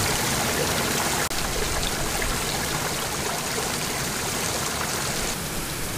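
Steady rush of a mountain river running over rocks, with a brief dropout about a second in.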